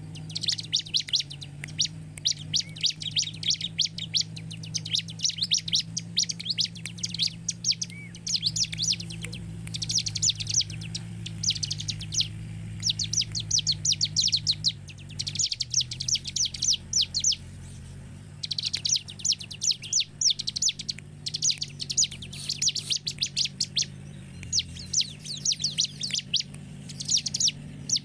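Bar-winged prinia (ciblek) singing: rapid, chattering phrases of sharp high chirps, each about a second long, repeated with short pauses between them.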